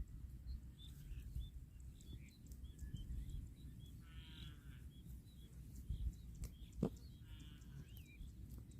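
Birds chirping faintly, with short high chirps throughout and two longer warbling calls, over a low background rumble. There is a single sharp knock about seven seconds in.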